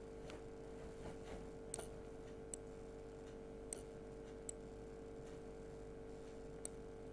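A computer mouse clicking about five times at irregular intervals while a letter is drawn with the cursor, over a faint steady hum.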